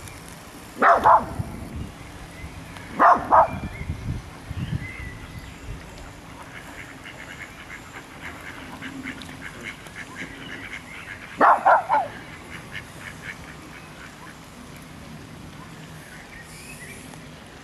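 A small dog barking in short bursts: about a second in, twice around three seconds, and again in a quick cluster near twelve seconds. Ducks quack faintly in between.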